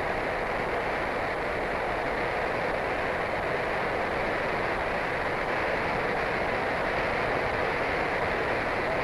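Steady din of textile-mill machinery, a dense, even rushing clatter of many power looms running together with no single beat standing out.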